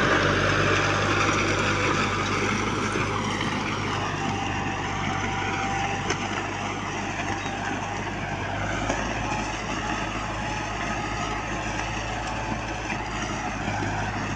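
Farm tractor engine running steadily under load, a continuous low drone that eases slightly a couple of seconds in.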